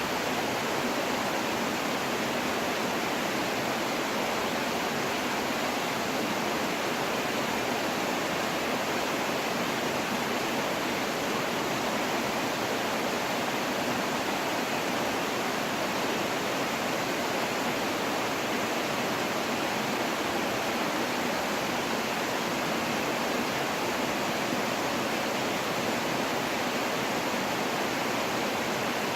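Waterfall pouring into a pool, a steady even rush of falling water with no change in level.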